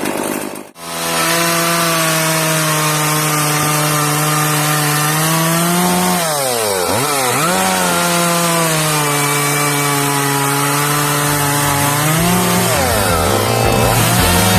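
Partner 5000 Plus two-stroke chainsaw running at high revs while cutting wood. The engine note dips sharply and recovers about six seconds in, and again near the end, as the chain loads up in the cut.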